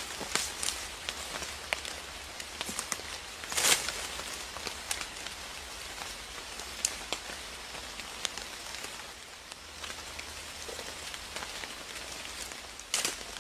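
Steady patter of rain, with scattered sharp taps of single drops and a louder burst of noise about four seconds in and again near the end.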